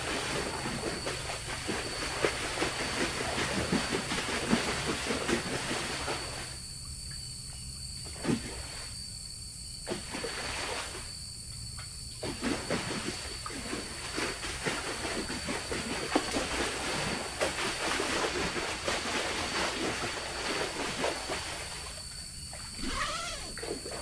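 Night jungle ambience beside a river: a steady hiss with irregular crackles and small knocks, and a constant high-pitched insect drone. A few louder knocks come about 8 and 10 seconds in, and the hiss briefly drops out several times.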